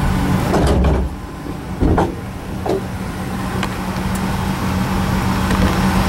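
Starter cranking the Shelby Daytona's engine in a steady drone without it catching, the engine not getting fuel. A few sharp clicks and knocks sound over it in the first few seconds.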